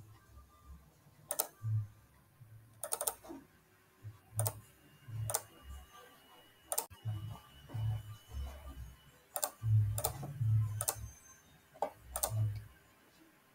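Computer mouse clicking: about ten sharp single clicks at irregular intervals, one a quick double click about three seconds in, with soft low thumps between them.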